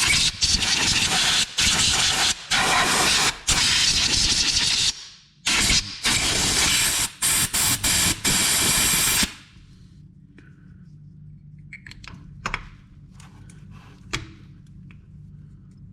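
Compressed-air blow gun hissing in repeated bursts, switched on and off sharply by the trigger, blowing debris out of the parts of a Can-Am that had been under water. The air stops about nine seconds in, leaving a faint low hum and a few light handling clicks.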